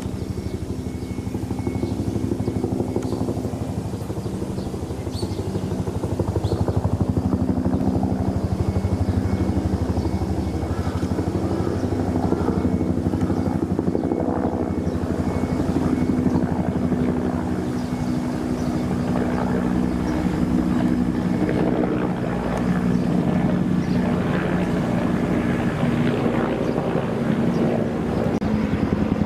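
A steady mechanical drone with a fast pulsing beat, its low hum drifting slightly in pitch.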